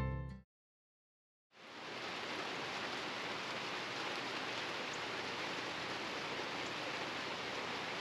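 Guitar music cuts off, and after a second of silence a steady hiss of rain falling fades in and carries on evenly, with a few faint drips ticking through it.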